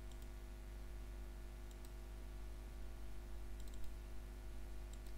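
Faint computer mouse clicks, a few single clicks and a quick double click, over a steady low electrical hum.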